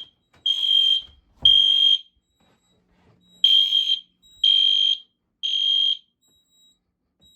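Fire alarm sounding in alarm with a high-pitched beep in the temporal-3 evacuation pattern: three half-second beeps, a pause of about a second and a half, then three more. The alarm was set off by real smoke from a burning cotton swab at a smoke detector.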